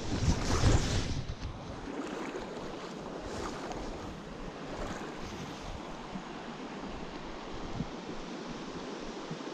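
Steady rush of fast-flowing stream water, with a brief louder low rumble in the first second.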